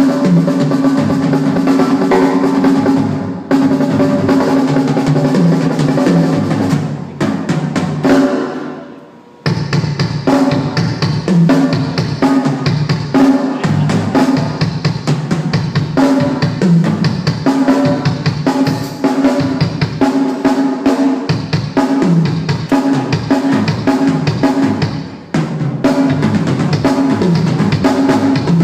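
Sonor Accent drum kit played through a groove of kick drum, snare and toms with rimshots and rolls, the drums ringing. Around a third of the way in the playing stops and rings out briefly, then starts again.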